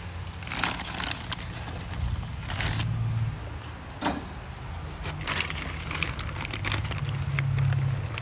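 Chunks of apple wood set by hand onto charcoal briquettes in an offset smoker's steel firebox: scattered knocks and clunks of wood against briquettes and metal, over a steady low hum.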